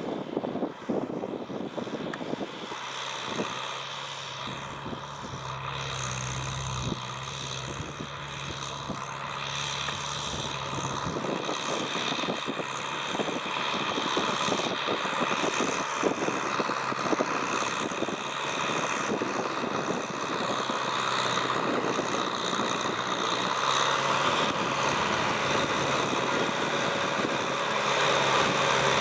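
Kubota M6040SU tractor's diesel engine running under load while working soil, with frequent knocks and rattles, growing louder over the stretch.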